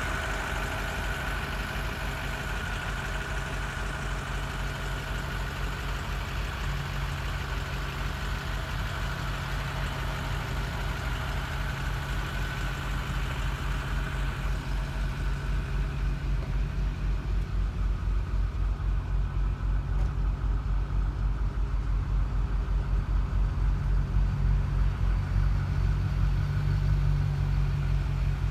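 An engine idling steadily with a low, even throb that grows louder over the second half.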